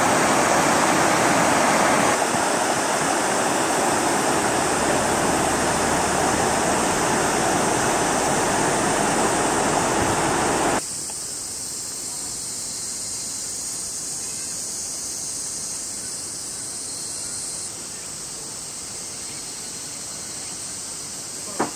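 Steady rush of a shallow river running over rapids. About halfway through it cuts abruptly to a quieter, steady high-pitched chorus of summer insects.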